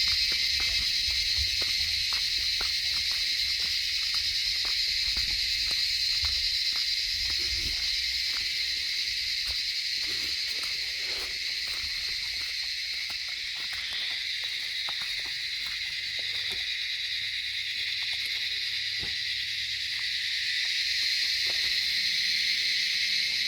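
Steady high-pitched chorus of insects, with faint ticks scattered through it and a low rumble in the first third.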